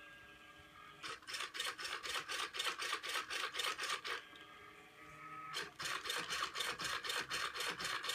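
A robotic bartender's motor-driven mechanism running in two bursts of about three seconds each, a rhythmic rasping at about four to five strokes a second, with a short pause between them, over a faint steady hum.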